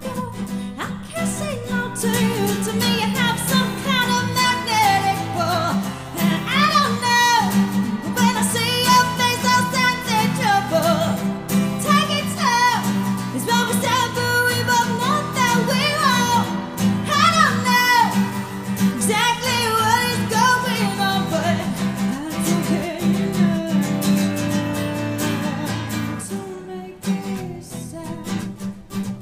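A woman singing a slow, dark acoustic song over a strummed acoustic guitar. Her voice stops near the end, leaving the guitar playing alone.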